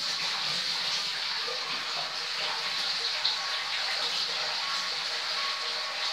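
A steady stream of water pouring into a nearly empty glass aquarium, splashing into the shallow water over the sand bottom as the tank fills.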